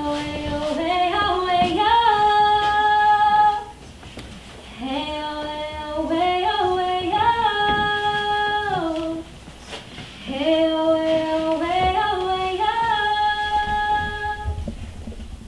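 A woman singing unaccompanied in three slow phrases, each climbing through a few held notes, with short pauses between them.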